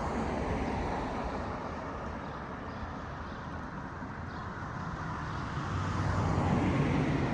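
Road traffic: car engine and tyre noise, swelling louder with a low engine hum about six seconds in.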